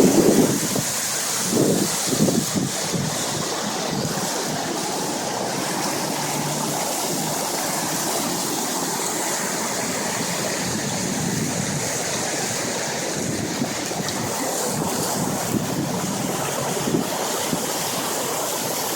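Steady rushing of a flooded creek's fast water, with wind buffeting the microphone now and then, most in the first few seconds.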